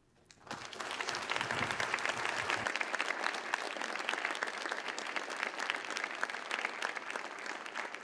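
Audience applauding: many hands clapping, swelling within the first second and then continuing steadily.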